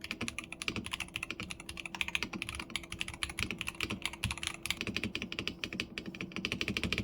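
Typing test on an Mchose Jet 75 magnetic-switch keyboard fitted with Kailh Magnetic God switches and PBT Cherry-profile keycaps: a fast, continuous run of keystroke clicks.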